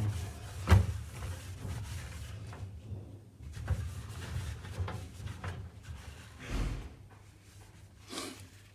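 Handling noises from a DVR's metal case as it is cleaned of dust: a sharp knock about a second in, then scattered smaller bumps and rubbing.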